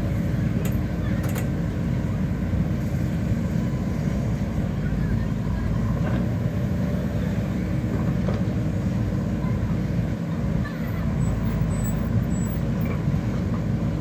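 JCB 4DX backhoe loader's diesel engine running steadily under load while the backhoe arm dumps and digs soil. A couple of faint knocks come about a second in.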